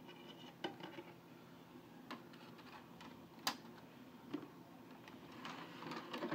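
Faint clicks and taps of CD-R discs being handled in an iMac G4's optical drive tray as one install disc is swapped for the next, the sharpest click about halfway. Near the end a short rising noise and a click as the tray closes.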